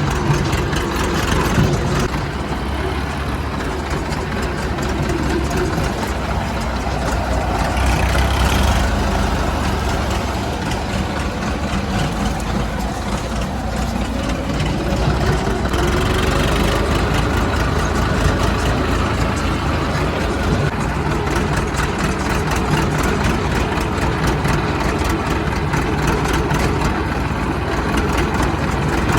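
Heavy diesel machinery engine running steadily, its engine note rising and falling a few times as it works under load.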